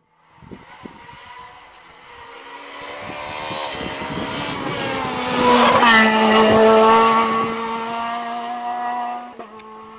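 Rally car engine at full throttle approaching at speed, revs climbing through the gears, passing close about six seconds in with a drop in pitch, then pulling away at steady high revs.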